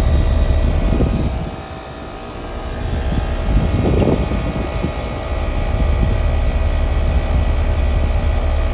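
Heat pump outdoor unit running in heating mode: steady compressor hum and condenser fan rumble, with a brief drop in level about two seconds in.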